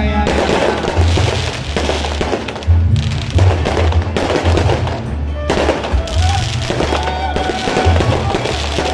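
Music with a heavy, pulsing bass beat.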